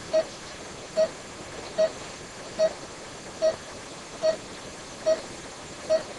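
Pulse oximeter on a patient monitor beeping in time with the patient's pulse: eight short, same-pitched beeps, one about every 0.8 seconds (a pulse of roughly 72 a minute), over a steady hiss.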